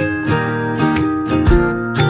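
Background music: strummed acoustic guitar with a steady beat of about two strokes a second.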